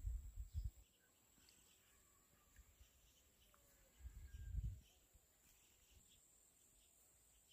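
Wind gusts buffeting the microphone in two short bursts, one at the start and one about four seconds in. Between them it is near silent, with faint high chirps and a steady thin high whine.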